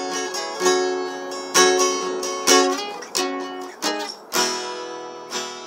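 Acoustic guitar played solo, with no singing: chords struck roughly once a second, each left to ring.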